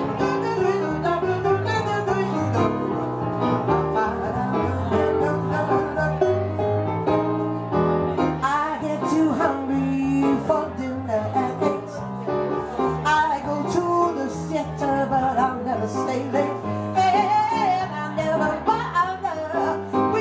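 Live jazz on a Yamaha digital piano, with a plucked bass line underneath and stretches of wordless singing.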